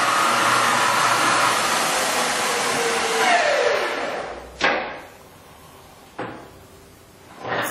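Servo SE1640 toolroom lathe running with its spindle at about 1,250 RPM, a steady whine. About three seconds in it winds down with a falling whine. Then comes a sharp clunk, followed by a couple of quieter knocks.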